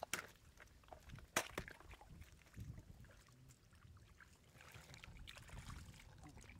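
Shallow muddy water splashing and sloshing as stranded fish flop and bare hands grope through the mud, with two sharp slaps in the first second and a half.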